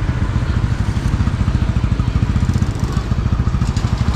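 A small engine running steadily, with a fast, even low pulsing.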